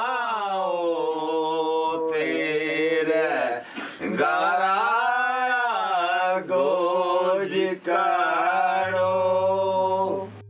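A man singing a slow song in long, drawn-out notes that bend and waver, with short breaks between phrases, over a steady low drone.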